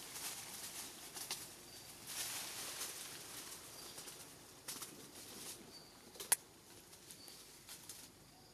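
Outdoor ambience: soft rustling and crackling with scattered clicks, one sharp click about six seconds in, and faint short high chirps every second or two.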